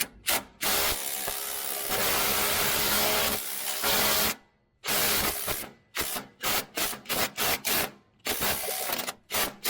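Cordless power tool driving a 13 mm socket on the starter's battery-cable nut: one long run of about three and a half seconds, then a shorter run and a string of quick on-off bursts. The nut is very tight, torqued on "like Hercules".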